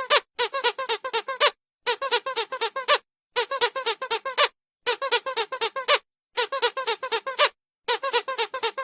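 Squeaky dog toy squeezed rapidly, about seven or eight quick squeaks per burst. The bursts last about a second each and repeat with short silent gaps between them.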